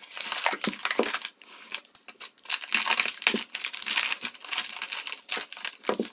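Cardboard box being pulled open, then a clear plastic bag crinkling as it is peeled off a tool post: irregular rustling and crackling throughout.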